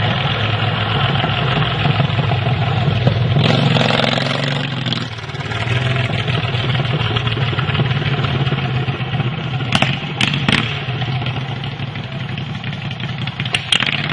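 Mini chopper's 18-horsepower V-twin engine running, getting louder a few seconds in and dropping back about a second later. A few short sharp clicks come in the second half.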